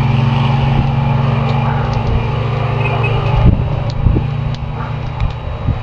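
Car engine running with a steady low hum, the note dropping and getting softer about three and a half seconds in, over road noise and a few sharp clicks.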